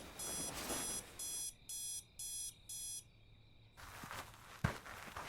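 Electronic alarm clock beeping in a repeating pattern, about two high-pitched beeps a second, stopping about three seconds in. A few soft thumps follow near the end.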